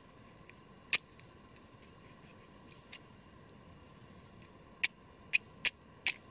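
Sharp strikes of a hand-held fire striker being struck to throw sparks onto tinder: one strike about a second in, then four in quick succession near the end.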